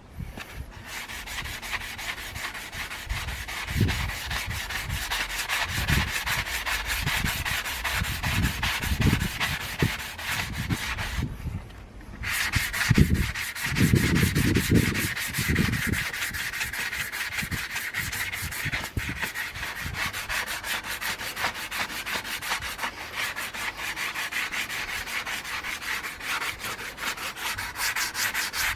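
Sanding an alloy car wheel to smooth out kerb damage: continuous scratchy rubbing with irregular low knocks, which pauses for about a second near the middle and then carries on.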